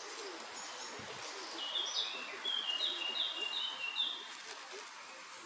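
A songbird singing a phrase of short, clear, repeated high notes, a few a second, for about two and a half seconds, over a steady background hiss.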